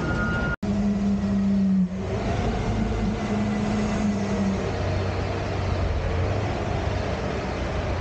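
Front-loader garbage truck's engine running as the truck drives, a steady drone with a strong engine tone for the first couple of seconds that then eases off. The sound drops out for an instant just under a second in.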